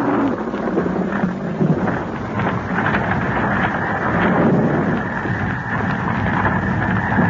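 Radio-drama sound effects for a tyrannosaurus attack: a loud, continuous rumbling din like thunder, with scattered sharp knocks through it.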